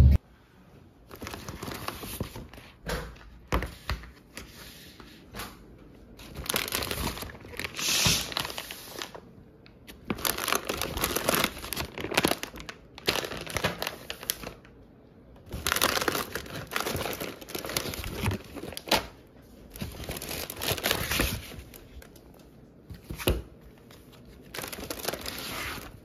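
Plastic food packaging and a shopping bag crinkling and rustling as groceries are handled and unpacked, in irregular bursts with short pauses between.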